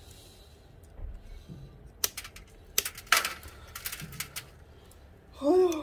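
Sharp clicks and snaps from dismantling a metal fluorescent light fixture: wires being cut with scissors and plastic lamp sockets worked off the sheet-metal panel, several in quick succession. A brief voice sounds near the end.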